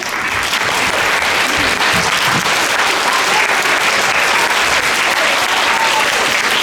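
Audience of schoolchildren and adults applauding in a large hall: steady, dense clapping that starts suddenly and holds at full strength.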